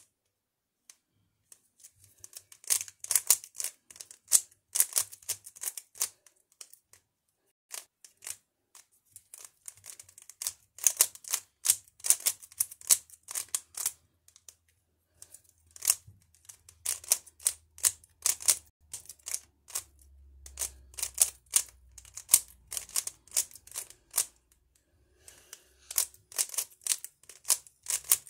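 A plastic 3x3 Rubik's-type cube being turned by hand in a speed solve, its layers clicking and clacking in quick runs of moves broken by a few short pauses.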